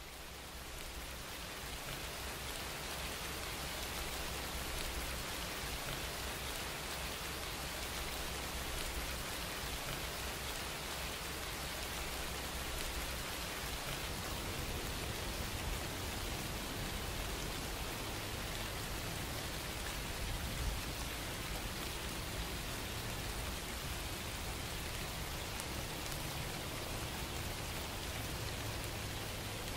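Steady rain-like hiss laid under the video as a background ambience track, fading up over the first couple of seconds. A low hum sits beneath it and steps up in pitch about halfway through.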